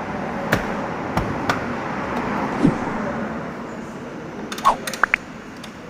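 Scattered clicks and knocks of workshop handling over a steady rushing background noise, with a few short rising squeaks near the end.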